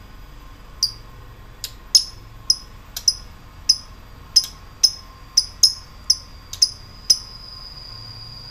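Lovebird 'ngetik': sharp, high single chips at about two a second. About seven seconds in it breaks into a continuous high trill, the 'ngekek' chatter of a lovebird in a worked-up, fighting mood.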